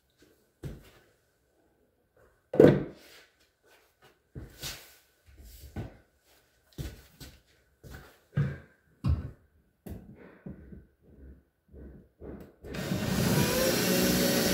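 Scattered knocks and handling of tools against the cabinet, then near the end a power drill runs steadily for about two and a half seconds, drilling a pilot hole in the drywall for a Molly anchor.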